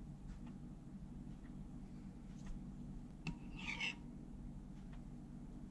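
A metal spoon clicks and then scrapes briefly against a bowl a little over three seconds in, over a low steady room hum with a few faint taps.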